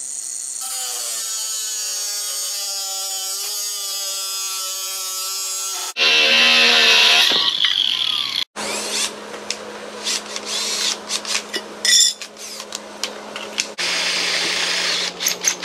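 Small cordless cut-off grinder cutting a sheet of aluminum about a sixteenth of an inch thick. The motor whines steadily for several seconds; about six seconds in the sound grows much louder and harsher as the disc bites into the metal, and it goes on in further stretches of cutting that break off abruptly.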